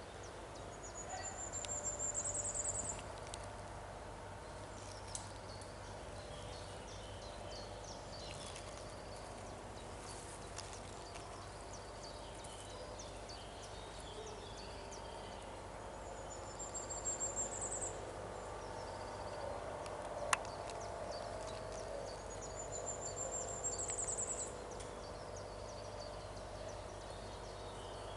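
A small bird singing a high trill that rises in pitch, three times, each lasting about two seconds, over faint outdoor background noise with a few scattered small clicks.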